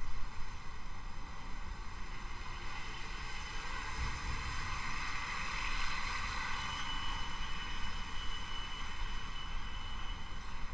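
Steady low background noise: a hiss with a low rumble underneath. A faint high whine comes in past the middle and stops shortly before the end.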